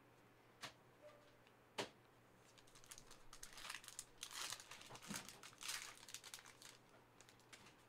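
Faint crinkling and rustling of a foil trading-card pack being torn open and handled, after two light clicks in the first two seconds.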